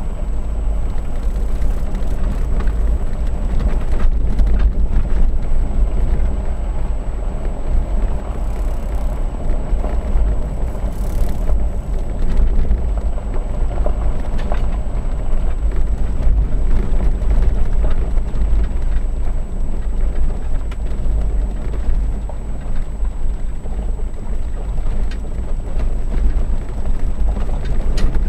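Vehicle driving slowly on a dirt and gravel road, heard from inside the cab: a steady low rumble of tyres and engine with occasional small clicks.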